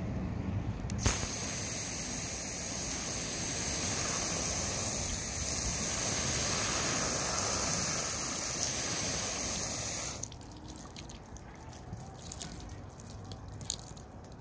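Water spray hissing steadily onto a car's fabric soft top proofed with Fabsil Gold. The spray starts sharply about a second in and cuts off after about ten seconds, leaving scattered drips and ticks of water running off the fabric.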